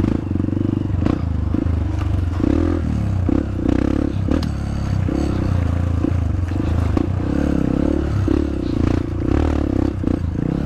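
Honda CRF150L's single-cylinder four-stroke engine running at low revs as the bike picks its way along a rough trail, the throttle opening and closing. Scraping from brush against the bike and rattling from bumps come through over it.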